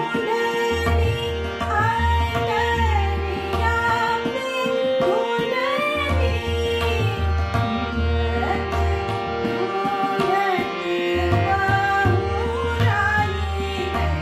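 A woman sings a Chaiti, a Hindustani semi-classical folk song, with ornamented gliding phrases over tabla accompaniment in Deepchandi taal. The deep bass strokes of the tabla come and go.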